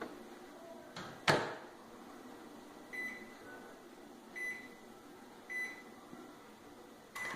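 Microwave oven door shut with a sharp knock about a second in, then three short keypad beeps as it is set, and near the end the oven starts running with a steady hum.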